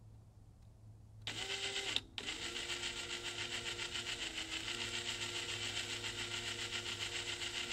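Cordless drill motor and gearbox running, spinning a bit in the chuck: a short run about a second in, a brief stop, then a steady run with a slight dip in speed midway.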